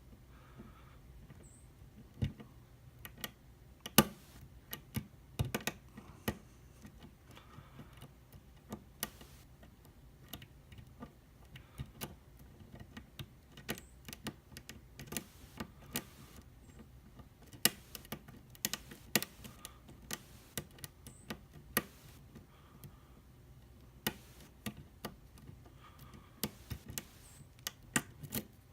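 Lock pick working the pins of a Wilka euro cylinder under very heavy tension wrench pressure: irregular sharp metallic clicks and scrapes, some much louder than others.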